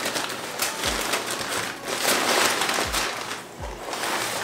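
Brown packing paper and a paper bag crinkling and rustling as hands dig through them in a cardboard shipping box, with a few low thumps against the box.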